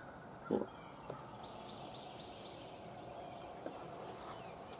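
Quiet outdoor background with faint bird chirps, broken by a short knock about half a second in and a couple of fainter clicks.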